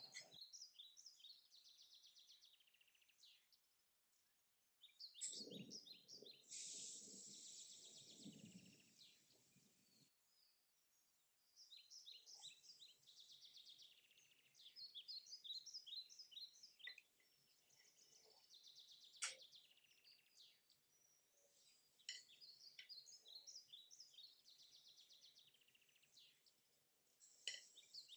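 Faint birds chirping and trilling, many short high calls, cutting out completely twice for a second or two.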